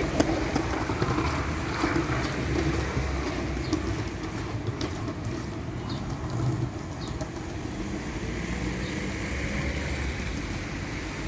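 Street ambience on a wet day: a steady hum of traffic from nearby cars, with scattered light clicks over it.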